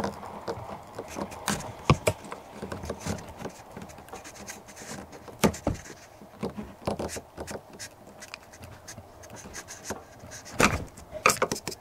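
Irregular light clicks and knocks, with a louder knock about two seconds in and a cluster of them near the end.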